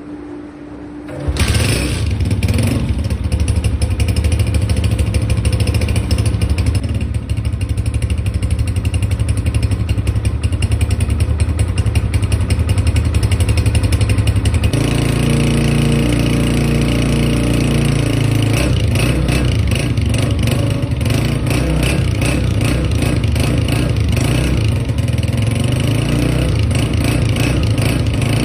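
Honda 125 motorcycle's single-cylinder four-stroke engine starting about a second in and then running steadily; its note changes about halfway through and becomes choppier toward the end.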